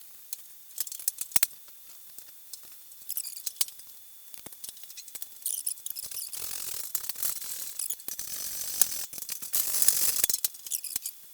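Light clicks and taps of metal body panels and fixings being handled, then from about six seconds in a stretch of hissy scraping and rustling mixed with sharper clicks.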